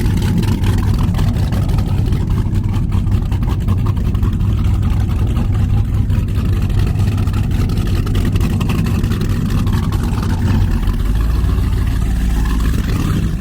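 Speedboat engine running steadily under way, a low drone with rushing noise above it.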